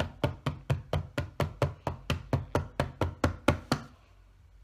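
A hand slapping a tabletop in a quick, even rhythm, about four slaps a second, stopping about four seconds in.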